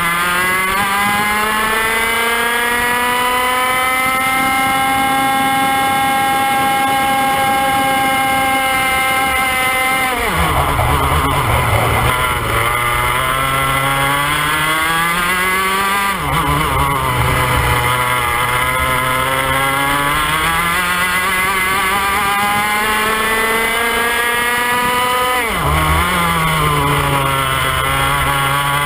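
IAME X30 125cc two-stroke kart engine at racing speed, heard from on board. Its pitch climbs and holds high, then drops sharply three times, about ten, sixteen and twenty-six seconds in, as the kart slows for corners, climbing again after each.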